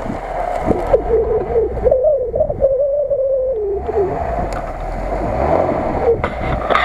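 Lada Niva 4x4 engine running under load as the car crawls across a grassy slope, its note wavering up and down, with a few sharp knocks.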